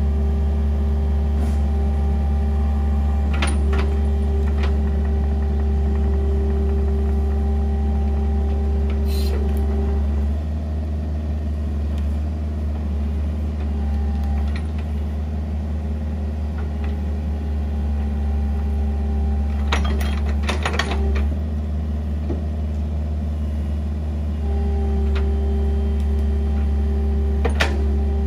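Compact excavator's diesel engine running steadily as the machine crawls up a steep dirt slope on its tracks, with a few sharp metal clanks. The engine eases off about ten seconds in and picks back up near the end.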